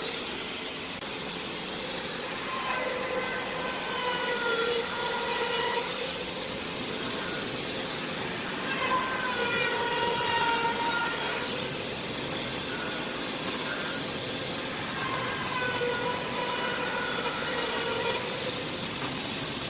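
A power tool's motor whining over a steady hiss, its pitch sagging and recovering in bouts of a few seconds.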